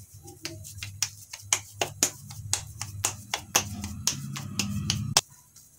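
Hands patting a ball of soft sabudana and mashed-potato dough between the palms to shape a tikki: a quick run of sharp slaps, about four a second, that stops suddenly about five seconds in.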